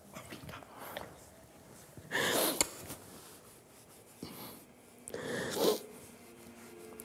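A person crying: sharp, gasping sobs and sniffs in separate bursts, the loudest about two seconds in and another about five seconds in.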